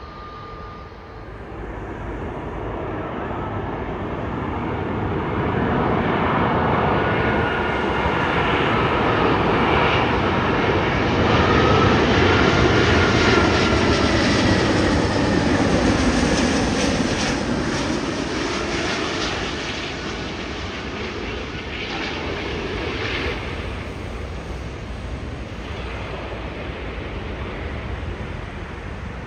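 Airbus A380 with four Rolls-Royce Trent 900 turbofans on final approach, passing low overhead. The engine noise swells to a peak about halfway through, its whine and hum falling in pitch as the aircraft goes by, then fades away.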